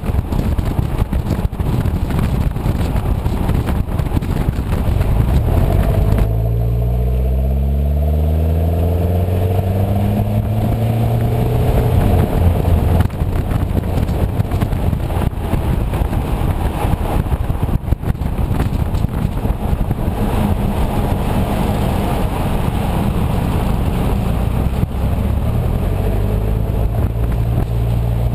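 Toyota Prado's 1KZ-TE 3.0-litre four-cylinder turbo-diesel running through a 3-inch aftermarket exhaust with a vortex muffler and resonator, heard while driving. The engine note climbs in pitch as it accelerates from about six seconds in, and again near the end. A rushing noise covers the first six seconds and then cuts off.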